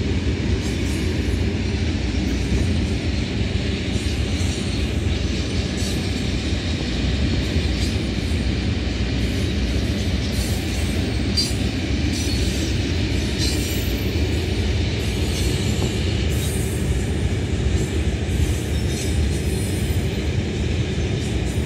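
A long train of iron-ore hopper wagons rolling past, a steady low rumble with brief high metallic squeals and clatter from the wheels coming and going.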